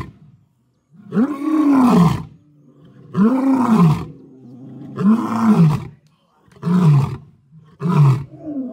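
Male lion roaring: a series of five deep calls, each rising and then falling in pitch, coming about every one and a half to two seconds, with the later calls shorter.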